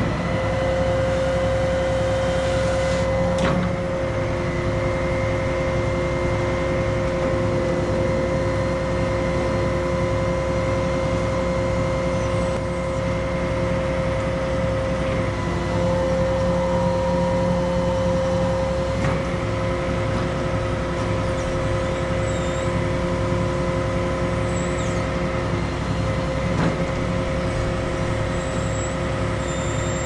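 Crane engine and hydraulics running steadily under load, with a constant high whine, while the boom works a grapple saw holding a cut limb. A few faint knocks come through, one near the start, one past the middle and one near the end.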